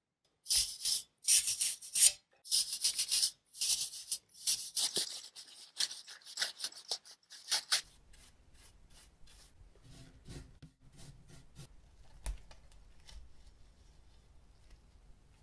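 Brushing and rubbing dust off PC parts: a run of loud, quick, scratchy strokes for the first eight seconds or so, then softer paintbrush strokes on a graphics card over a faint hum, with a single click a little after the middle.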